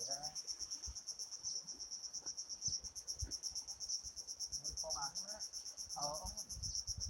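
Insects trilling steadily: a fast, even pulse of high chirps, with a few faint knocks underneath.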